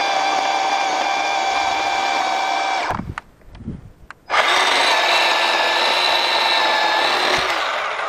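Battery-powered electric chainsaw cutting through a cherry log with a steady high-pitched motor whine. It stops about three seconds in, with a couple of low thuds. It starts again about a second and a half later, runs for about three seconds more, and winds down near the end.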